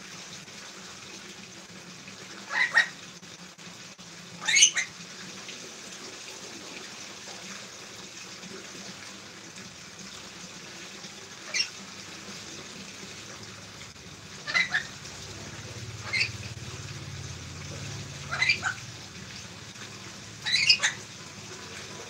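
A lory giving short, shrill calls, about seven spread across twenty seconds, some in quick pairs, over a steady background hiss.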